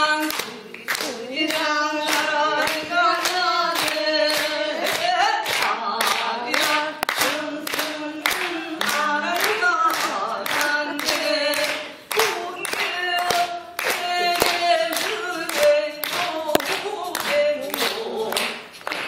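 Singing over a steady beat of hand claps, a little over two claps a second.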